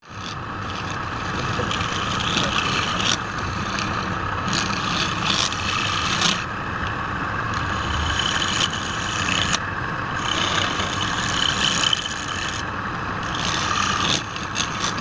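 Wood lathe running while a turning tool scrapes and cuts the spinning wood, the scraping coming in uneven spells of a second or two.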